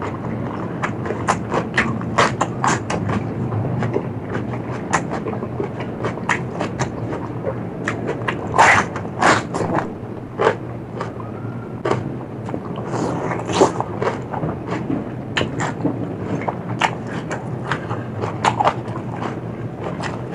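Close-miked eating: chewing and crunching of food, with many sharp, irregular crunches and wet mouth clicks.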